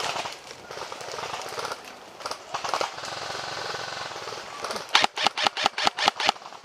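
An airsoft electric rifle firing a rapid string of about a dozen sharp cracks near the end, at roughly eight or nine shots a second. Before it there is a rustling, noisy stretch.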